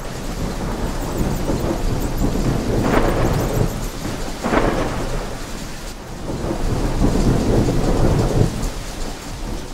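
Thunderstorm: steady rain with thunder rolling in three swells, the last one long.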